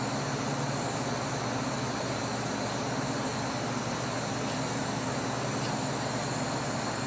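Handheld butane torch hissing steadily, its flame held on the cut end of a glass tube to flame polish the edge, over a faint low hum.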